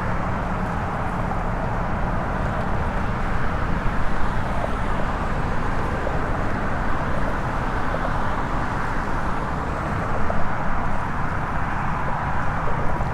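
Steady rumble of road traffic on the causeway, with no distinct events.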